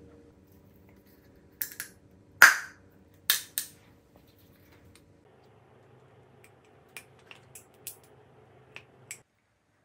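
Close-miked eating sounds: a handful of sharp bites and crunches in the first half, the loudest about two and a half seconds in, then a run of lighter clicks and taps near the end.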